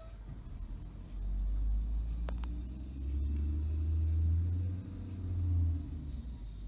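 Rear-loading garbage truck's diesel engine revving up to drive the hydraulic packer, a low rumble that swells about a second in and surges twice more as the blade cycles. A single sharp metallic clank a little after two seconds.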